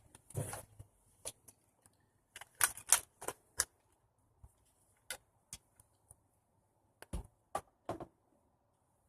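Irregular hard plastic clicks and clacks from handling Nerf foam-dart blasters and their magazines, with a quick cluster of five or six about two and a half seconds in, then scattered single clicks.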